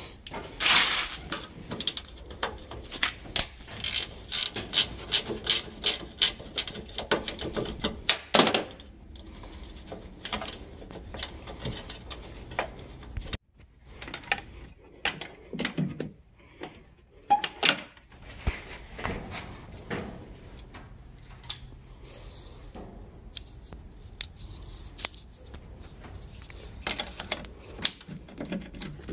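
Hand ratchet wrench clicking in quick back-and-forth strokes as a bolt on a pickup's tailgate cable mount is turned, a dense run of clicks that stops about eight and a half seconds in. After that come sparser metal clicks and scraping from hand tools, with another short burst of clicking near the end.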